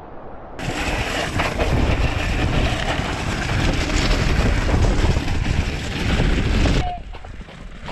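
Mountain bike ridden fast down a scree slope: loose stones crunching and clattering under the tyres, with heavy wind on the microphone. The noise starts suddenly about half a second in and cuts off near the end.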